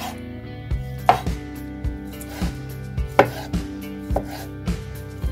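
Chef's knife slicing sausages into rounds on a wooden cutting board: each cut ends in a sharp knock of the blade on the board, about two a second, slightly irregular.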